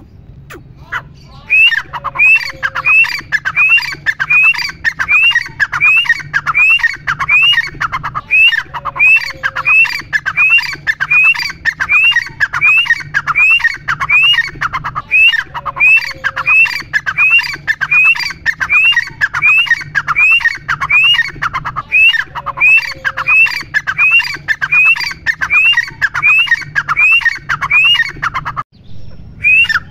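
Grey francolin calling loudly: a long series of shrill rising notes, about two or three a second, in phrases of six or seven seconds that follow one another with barely a pause. The calling breaks off abruptly near the end and starts again.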